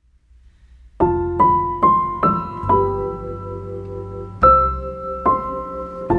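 Background piano music: a slow melody of single struck notes ringing over held lower notes, starting about a second in.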